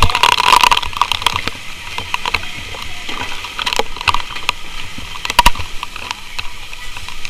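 Water from a fire hose spraying and pattering onto a burning house, a steady hiss with scattered crackles and knocks, one sharper knock about five and a half seconds in.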